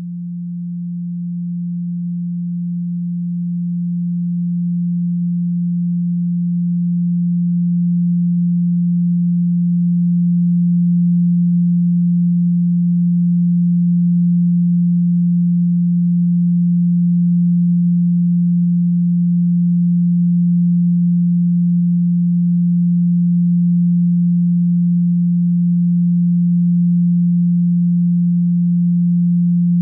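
A steady 174 Hz pure sine tone, the 'solfeggio frequency' used for sound-healing listening. It swells gradually louder over roughly the first third, then holds level with no change in pitch.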